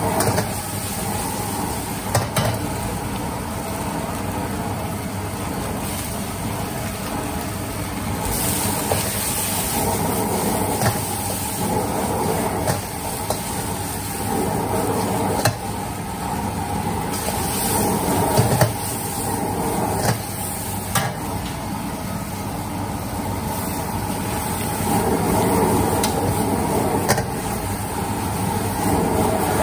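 Rice noodles stir-frying in a wok over a high gas burner: a steady rush of flame and sizzling, with the metal ladle scraping and clinking against the wok every few seconds.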